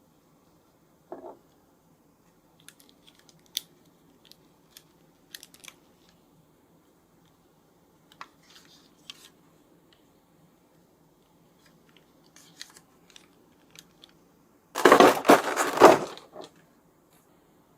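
Packaging handled while unboxing a figure: scattered small clicks and rustles, then a loud crinkling, tearing burst lasting about a second and a half near the end.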